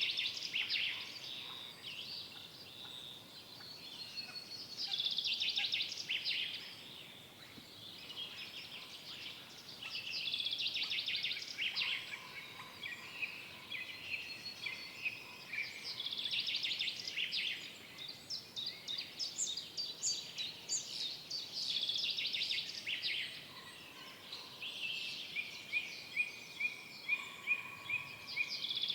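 Songbirds singing in a forest, with a burst of song every few seconds and a run of evenly spaced repeated notes near the end, over a faint steady background hiss.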